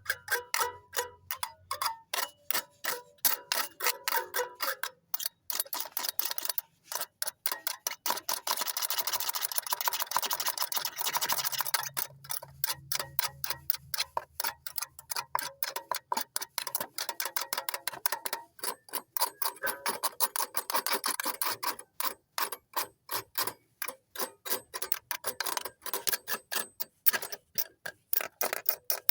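A cowbell struck over and over in a fast, even rhythm of several sharp strikes a second, with a ringing tone in the first few seconds.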